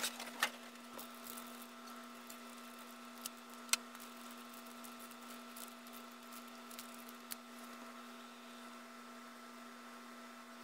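Faint clicks and taps of small plastic parts being handled as a figure's water-gun accessory is fitted into its hand, over a steady electrical hum.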